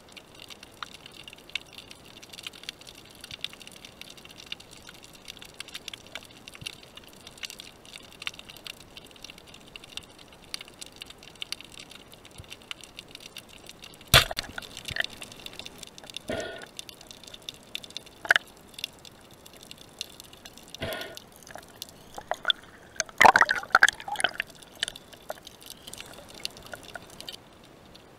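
Underwater sound picked up by a speargun-mounted camera: a steady faint crackle of tiny clicks, a sharp knock about halfway through, and a cluster of louder clicks and knocks near the end.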